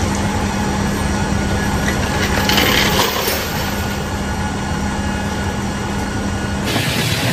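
Steel tie-down chains clinking and rattling against an aluminium cargo floor as they are hooked up to secure a vehicle, with a brighter jangle about three seconds in. Under them runs a steady loud machinery hum that cuts off near the end.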